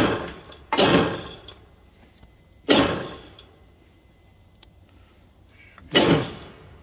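Three sharp metallic clanks with short ringing, about a second in, near three seconds and near the end: heavy steel press adapter cups being set down and knocked against a torque-rod bushing on a press, while fitting a new silent block.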